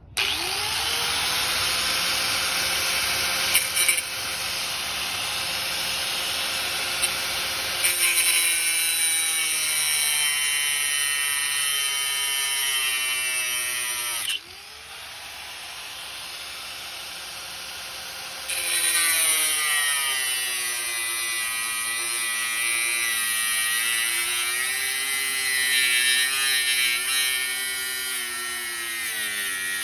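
Handheld electric power tool running under load, its motor pitch sagging and rising as it bites. It stops about halfway through and starts again a few seconds later.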